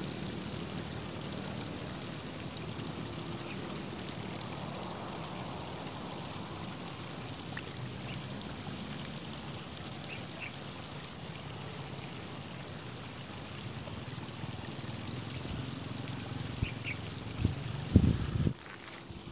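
Steady outdoor background noise with a faint low hum and a few brief high chirps, broken near the end by a few loud thumps.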